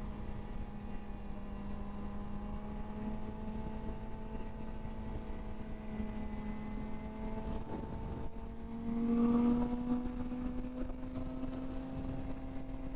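Suzuki GSX-R sportbike's inline-four engine running at a steady cruise, its pitch creeping slowly higher as the bike gains speed. About nine seconds in it briefly gets louder as the throttle is opened a little more.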